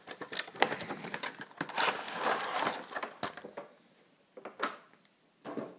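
Clear plastic blister packaging being handled and pulled out of its box: a busy run of crinkles and clicks for about three seconds, then a few separate clicks.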